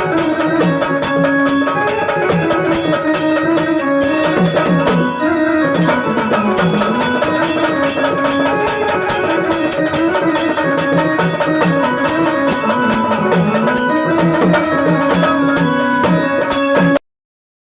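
Traditional Marathi folk music, with hand drums playing a fast, dense rhythm under a wavering melody line. It stops abruptly near the end.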